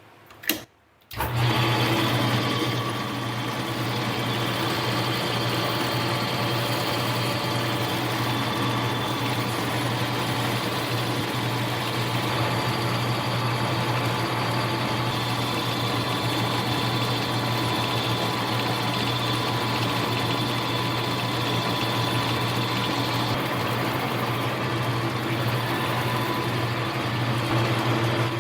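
Small hobby metal lathe starting up about a second in, then running steadily under its motor: an even low hum with a higher whine, while it faces off a plastic part.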